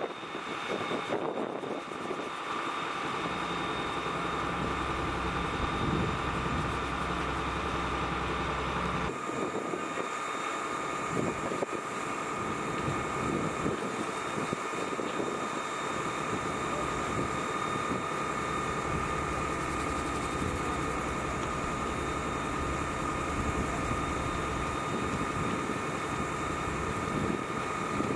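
Fire engine running at the scene, its engine and pump giving a steady drone with a constant whine over it. The sound changes abruptly about nine seconds in.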